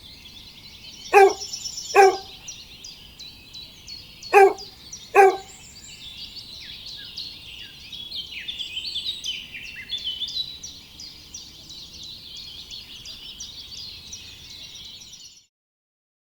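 A chorus of small songbirds chirping and twittering. Four loud, short, harsher calls stand out in two pairs during the first five seconds. The sound cuts off abruptly near the end.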